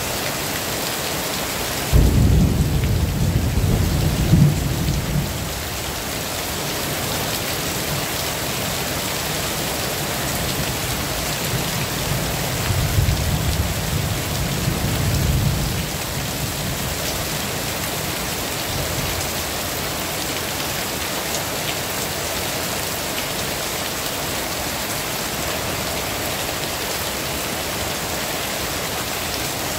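Heavy rain falling steadily, with two low rumbles of thunder: one breaking in sharply about two seconds in and rolling for a few seconds, and a second, longer one a little past the middle.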